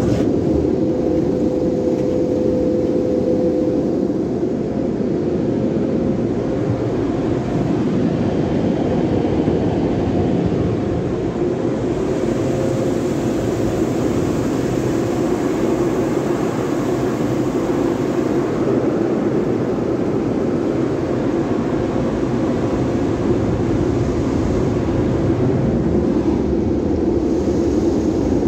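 Sonny's automatic car wash tunnel equipment running steadily, heard from inside the car, with water spraying over the glass. A higher hiss joins in for several seconds around the middle.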